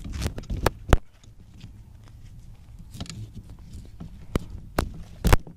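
Handling noise on a GoPro camera as a hand and cloth wipe water off its lens: rubbing and a series of sharp knocks against the housing, the loudest about a second in and near the end.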